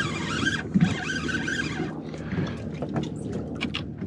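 Water slapping and lapping against a small fibreglass boat's hull, with a single knock a little under a second in and a few light clicks near the end.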